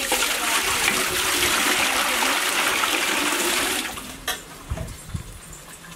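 Water poured in a heavy stream from a stainless steel pot into a large aluminium cooking pot already holding water, splashing for about four seconds and then stopping. A single knock follows shortly after.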